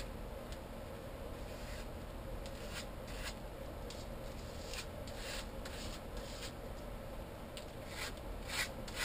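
A card scraped in short rasping strokes across a stencil on a paper page, spreading acrylic paint through it, about ten strokes in three bursts.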